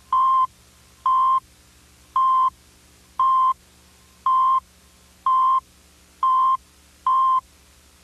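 Countdown tone of a mid-1990s cable TV Emergency Alert System weekly test: eight short beeps at one steady pitch, about one a second, stopping shortly before the end.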